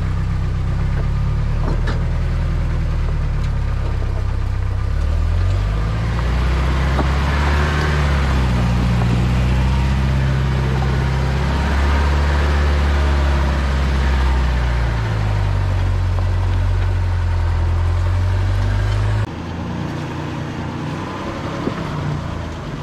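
A 1984 Toyota pickup's engine running under load as it crawls over rocks, its pitch climbing about six seconds in and holding. Near the end it gives way abruptly to a quieter idling engine from a second Toyota pickup.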